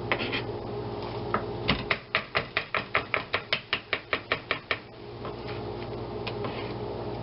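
Kitchen knife chopping garlic on a cutting board: a few separate cuts, then a quick even run of about six or seven strokes a second lasting about three seconds.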